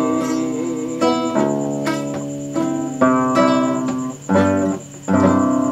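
Acoustic guitar strumming a series of chords, each left to ring before the next: the closing bars of a corrido after the singing has ended.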